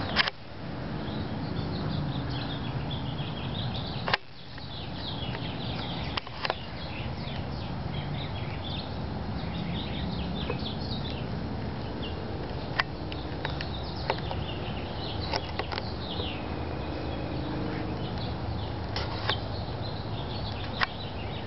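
Small birds chirping repeatedly over a steady low background rumble, with a few sharp clicks, two of them loud near the start and about four seconds in.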